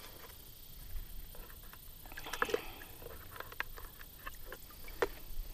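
Water sloshing and dripping in a Frabill bait bucket as hands dip in to catch a goldfish, with scattered clicks and knocks from the bucket's plastic insert.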